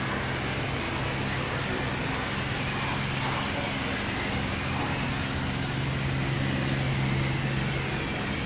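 Self-service car wash running its low-pressure pre-wash: a steady machine hum under the hiss of the wand spraying hot water and detergent.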